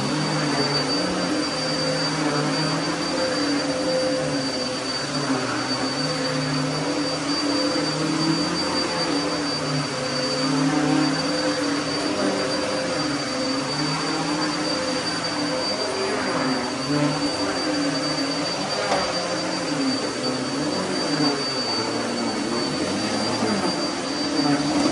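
Upright vacuum cleaner running continuously while it is pushed back and forth over a carpet runner. Its motor hum rises and falls slightly with each stroke over a steady high whine.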